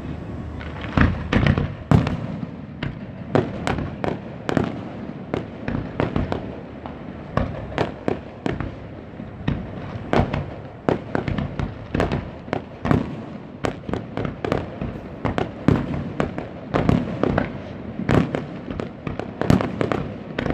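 Aerial fireworks bursting in a continuous barrage, many sharp bangs a second, overlapping with rumbling echoes between them.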